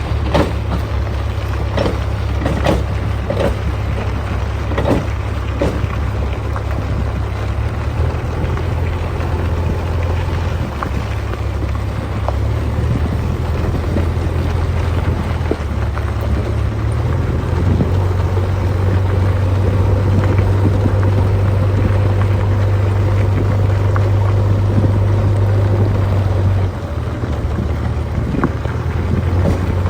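A heavy diesel engine on earthmoving machinery runs steadily under load, with a string of knocks and clanks in the first few seconds. It grows louder for a stretch past the middle, then drops back near the end.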